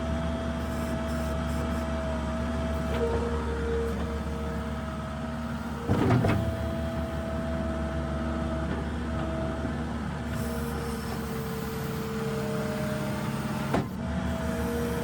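New Holland LS170 skid steer's diesel engine running steadily while moving snow, with a hydraulic whine that comes and goes in pitch. A loud clunk sounds about six seconds in and a short sharp knock near the end.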